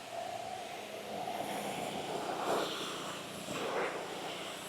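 Simpson ALH3425 gas pressure washer running steadily on its Honda GX engine, with the hiss of its spray jet. The spray noise swells briefly twice, about two and a half and four seconds in.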